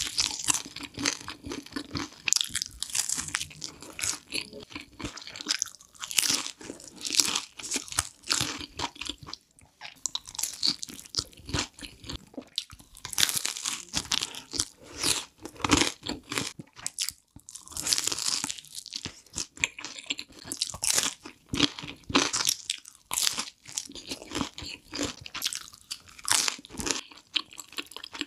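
Close-miked biting and chewing of crispy thin-crust pizza, with a dense crackle of crunches as the crust breaks between the teeth.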